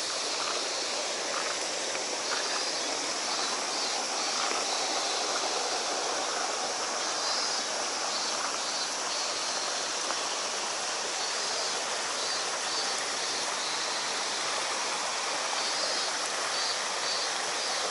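Steady rushing of a stream running over rock, an even wash of water noise with no breaks. Faint high chirps repeat in short runs above it.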